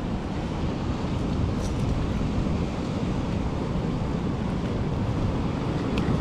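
Steady wind rumbling on the microphone over the wash of surf on the beach.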